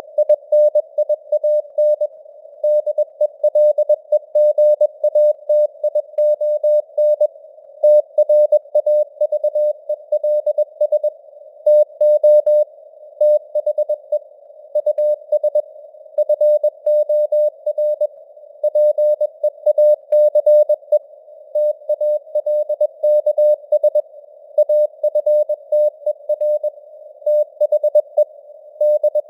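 Computer-generated Morse code at 21 words per minute: a single mid-pitched beep keyed on and off in dots and dashes over a narrow band of simulated radio hiss. The signal strength rises and falls as it fades (QSB).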